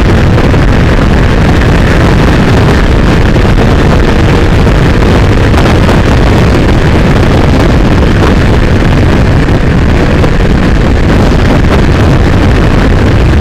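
Loud, steady wind buffeting on the microphone of a motorcycle riding at highway speed, with the motorcycle's engine running underneath.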